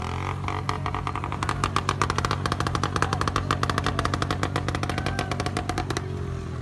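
Motorcycle engine running with rapid, even exhaust beats over a steady low hum; the beats stop about six seconds in.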